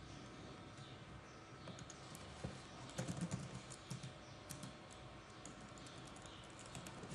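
Faint keystrokes on a computer keyboard: short clicks in a few quick runs of typing, starting about two seconds in.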